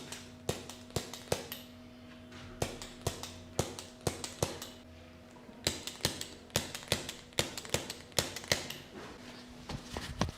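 A quick series of sharp taps or knocks, coming in short runs of two to four about a third of a second apart with brief pauses between runs, over a faint steady hum.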